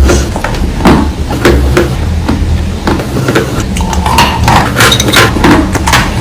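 Close-miked crunching of dry chalk being bitten and chewed: a dense run of irregular, sharp, brittle crunches and snaps.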